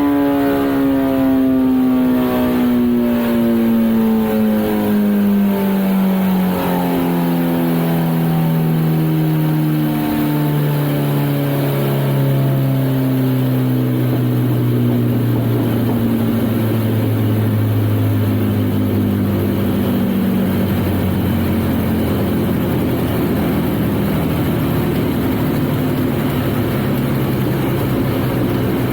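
Kawasaki ZX-14R's inline-four with a Brock's Alien Head exhaust winding down on a dyno after a pull. The pitch falls steadily for about twenty seconds, then levels off near the end.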